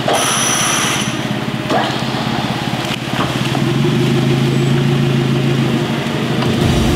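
Off-road 4x4's engine running as it reverses, then held at a steady higher rev from about halfway through.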